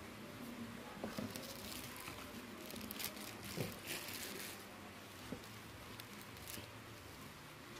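Clear plastic packaging crinkling and rustling as it is handled, in several irregular bursts, with a few light clicks and knocks.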